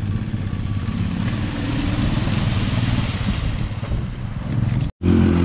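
Royal Enfield Classic 500's single-cylinder engine running at low revs in even, slow pulses as the motorcycle crosses a shallow stream, under the steady rush of flowing water. A short break near the end, after which the engine is louder.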